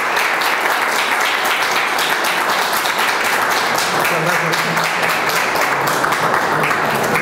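Audience applauding steadily, with some voices faintly underneath.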